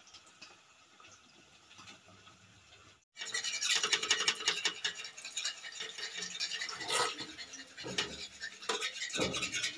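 Chhena (cottage cheese) balls frying in hot oil in a steel kadai: a faint sizzle at first, then after a cut about three seconds in, a loud, dense crackling sizzle. A few knocks of a spoon against the steel come near the end.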